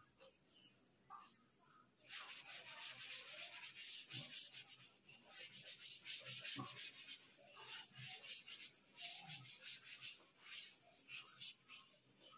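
Blackboard duster rubbing chalk off a chalkboard in quick back-and-forth strokes, starting about two seconds in. The rubbing is faint and scratchy.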